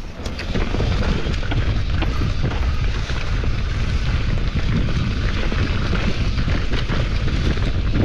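Wind buffeting the microphone over the rattle and tyre noise of a mountain bike riding fast over rough trail. It swells about half a second in and then holds loud and steady.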